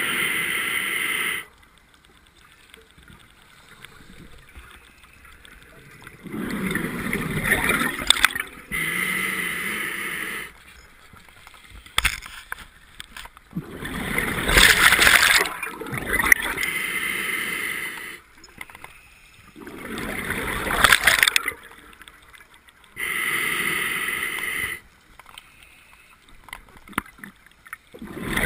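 Scuba diver breathing through an open-circuit regulator: slow breaths about every six to seven seconds, each heard as two rushes of hiss and bubbling of a second or two, with quiet gaps between breaths.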